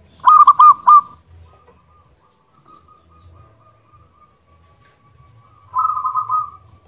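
Zebra dove (perkutut) cooing: a loud quick run of four notes in the first second, a faint thin note held after it, then a rolling, trilled phrase near the end.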